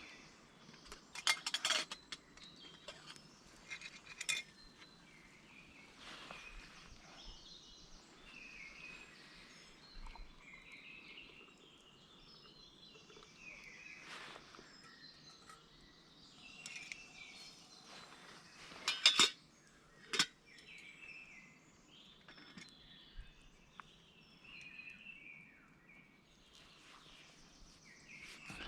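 Birds chirping in woodland, with a few sharp metallic clinks, like cooking utensils or grill parts knocking together. Two clinks come in the first few seconds and two louder ones about two-thirds of the way through.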